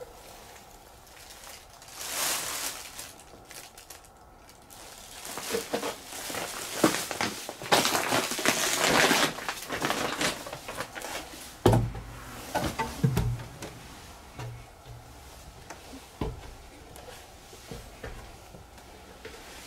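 Footsteps and rustling in a wooden shed: crunching and crackling over debris on the plank floor, then a few dull wooden thumps about twelve to sixteen seconds in.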